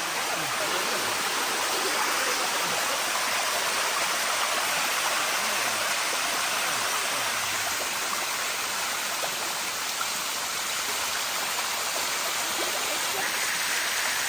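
Waterfall water rushing steadily over limestone cascades, an even hiss with no breaks.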